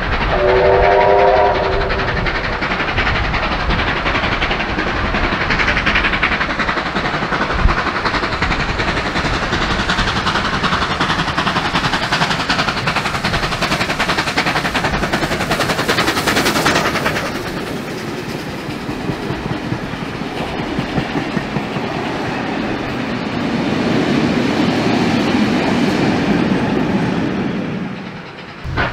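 Steam locomotives under way. First a chime whistle sounds briefly as a chord of several tones. Then a steam engine, among them the green streamlined NSW 38 class Pacific 3801, works past with heavy exhaust, and its wagons roll by with a clickety-clack over the rail joints, fading away near the end.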